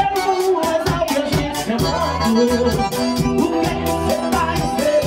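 Live band playing Latin music to a steady drum beat, a male singer over electric guitar and keyboard.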